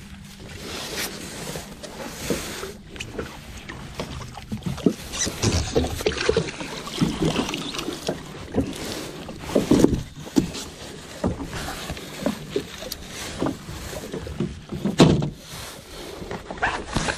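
Water splashing and slapping against a jet ski's hull, with irregular knocks and thumps as a queenfish is hauled out of the water and handled on board.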